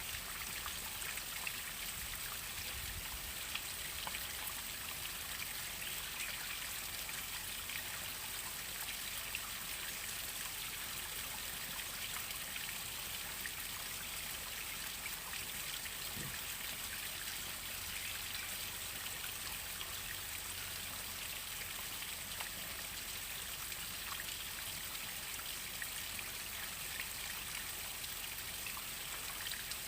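Waterfall: water falling and splashing steadily, with a dense patter of droplets.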